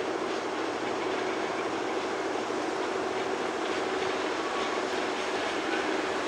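An approaching freight train led by two coupled EF81 electric locomotives, running on the rails with a steady rumble and a continuous hum.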